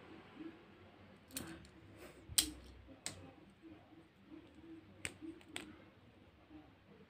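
Plastic and metal Beyblade Burst parts clicking and knocking together as they are handled and taken apart, several sharp clicks with the loudest about two and a half seconds in.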